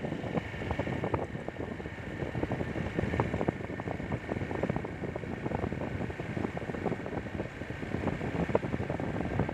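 Honda motorcycle riding along a road, engine running under heavy wind buffeting on the microphone.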